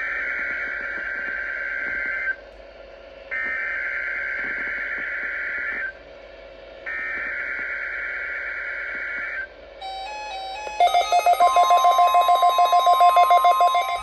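NOAA Weather Radio receiver speaker playing the SAME digital header of a Required Weekly Test: three identical buzzy data bursts of about two seconds each, a second apart. This is the coded signal that automatically activates weather radio receivers. About ten seconds in, receiver alert beeping starts, a rapid electronic beep about five times a second, with a steady higher tone joining it.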